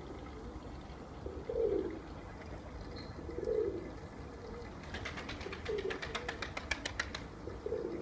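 Najafi Kambak fancy pigeons cooing, one low coo about every two seconds. From about five seconds in comes a two-second run of rapid sharp claps, a pigeon's wings flapping as it flies up onto the loft roof.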